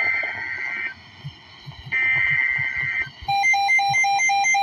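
Emergency Alert System header data tones: two bursts of digital warbling tone, each about a second long, with a short gap between them. From about three seconds in, a rapid pulsed electronic alert beep follows, about four to five beeps a second.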